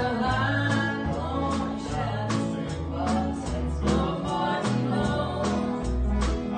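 Live country-gospel band: a voice singing over strummed electric guitar and electric bass, with a steady beat.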